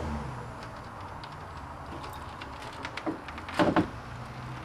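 Ford F-150 hood being lowered and pressed shut: a few light clicks, then a louder clunk about three and a half seconds in as it latches.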